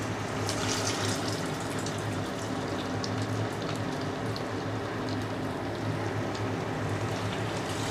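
Soybean cutlets sizzling and crackling in hot oil in a kadai as they are slid in one at a time for shallow frying, over a steady low hum.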